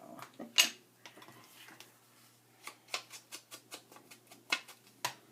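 Paper-craft work at a table: one sharp snap, then a run of light clicks and taps, about two or three a second.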